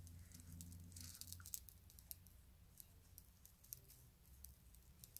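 Faint, irregular soft clicks and rustling as a makeup blending sponge dabs foundation onto the skin, denser in the first couple of seconds.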